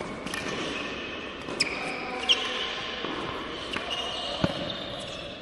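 Tennis balls struck softly by rackets and bouncing on an indoor court in a short rally, a sharp knock about every 0.7 s, echoing in the hall.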